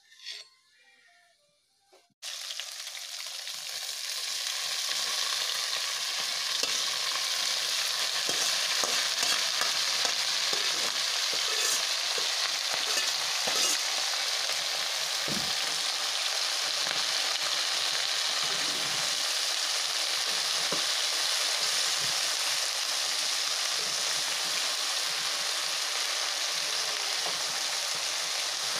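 Sliced green vegetable stalks sizzling as they fry in a wok on a gas stove, stirred with a metal spatula. The sizzle starts suddenly about two seconds in and then holds steady, with a few light knocks of the spatula.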